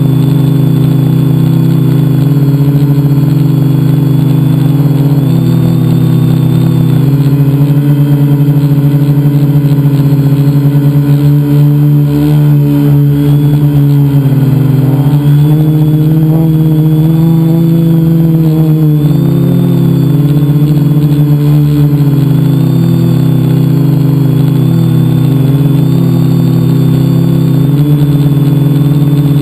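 Multicopter's electric motors and propellers in flight, heard from a camera mounted on the craft itself: a loud, steady buzzing hum whose pitch wavers up and down as the motors change speed.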